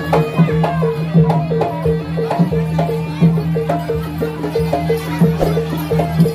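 Javanese gamelan music accompanying a kuda kepang (jaranan) dance: metallophones repeating quick, even notes, about three a second, over hand-drum strokes and a steady low ringing tone.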